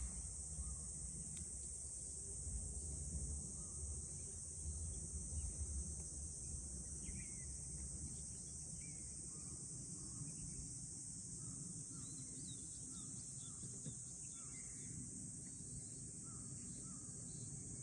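Summer insect chorus, a steady high-pitched drone, over a low rumble, with a run of short, evenly spaced chirps a little past the middle.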